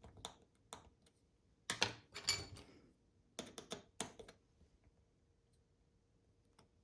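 Light clicks and taps of a small plastic key fob shell and its tiny screws being handled, in two short clusters about two and four seconds in.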